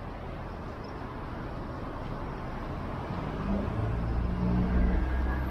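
City street traffic: a steady hiss of road noise, with a motor vehicle's engine growing louder from about halfway through as it comes closer.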